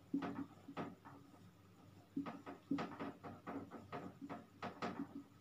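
Marker pen writing on a whiteboard: a string of short squeaks and taps as the strokes of a word are drawn, a few at first, a pause about a second in, then a quick busy run of strokes.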